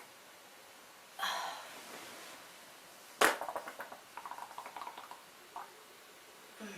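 A sputtering fart: a sharp pop a little after three seconds, then a quick stuttering run of small pops for about two seconds. A short hiss comes about a second in.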